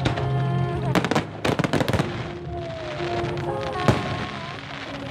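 Aerial fireworks bursting: a string of sharp bangs with crackling, grouped about a second in and a strong single bang near the end, over music playing.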